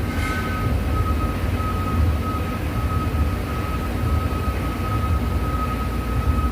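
TIG welding setup running: a steady low hum with a thin, steady whine over it, and a brief hiss about a quarter of a second in.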